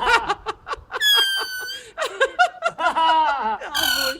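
People laughing in quick bursts. A blade of grass is blown between the thumbs, giving a shrill, steady squeal about a second in that lasts nearly a second, and a shorter one near the end.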